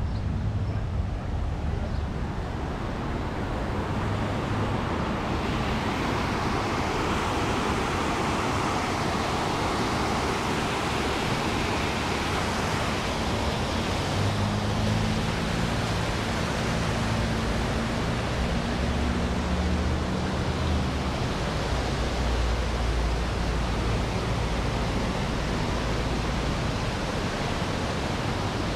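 Steady rush of wind and road noise on a bicycle-mounted camera's microphone while riding, with a low engine hum from passing traffic in the middle.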